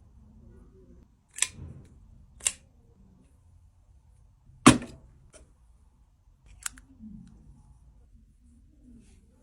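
Unboxing handling sounds: four sharp clicks or snaps, the loudest a little under halfway through, with soft rustling and handling between them.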